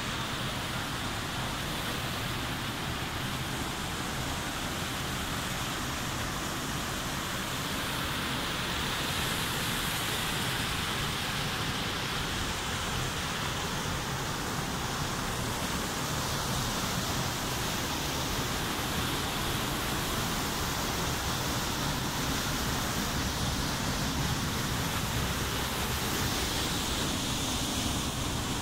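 Waterfall pouring into a rock pool, a steady rush of water.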